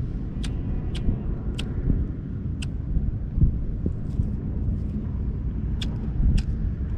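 Wind buffeting the microphone, a steady low rumble, with brief high-pitched chirps about half a dozen times.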